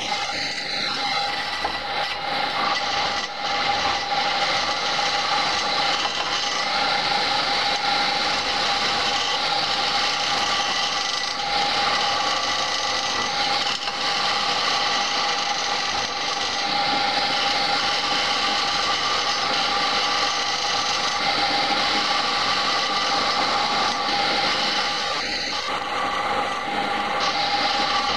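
Wood lathe running steadily while a skew chisel slices along a long spinning wooden blank, a continuous cutting hiss with a steady tone over it. The skew is cutting the wood rather than scraping it.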